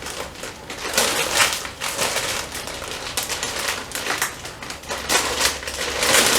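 A mail-order package being opened by hand: irregular rustling and crinkling of the packaging.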